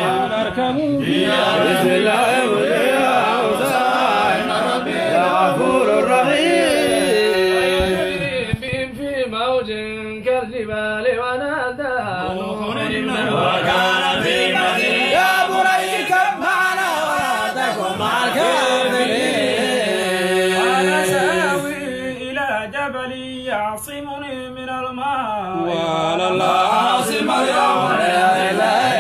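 A man's voice chanting Quranic recitation in Arabic, in long melodic phrases with drawn-out gliding notes.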